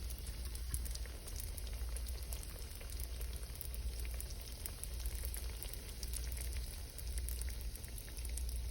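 Donuts frying in hot oil: a steady sizzle with many small crackles, over a low hum.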